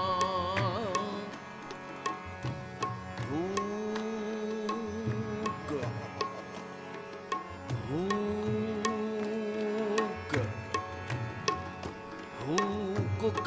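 Music of a Sufi ghazal between sung lines: a tabla keeping a steady rhythm under three long held melodic phrases, each sliding up into its note.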